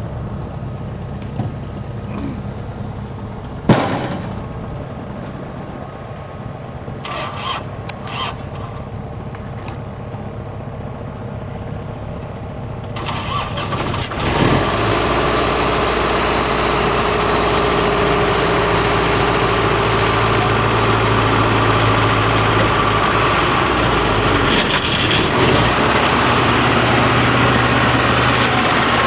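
Farm machinery engine running steadily at a low idle, with a single sharp knock a few seconds in. About halfway through, it suddenly turns louder and fuller as an engine starts or is run up, then keeps running steadily at the higher level.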